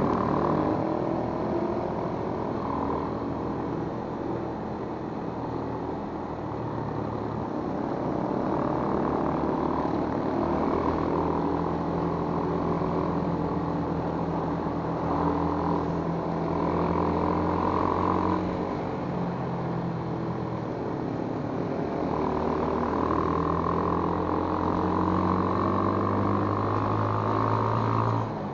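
Motorcycle engine running under way, its pitch rising and falling again and again as the throttle is opened and eased, over steady road noise.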